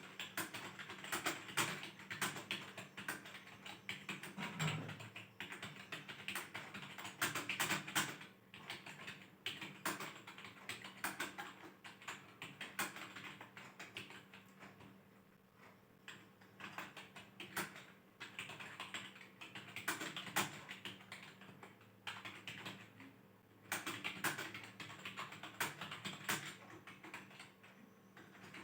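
Fast typing on a computer keyboard: keys clattering in quick runs, with brief lulls, over a faint steady hum.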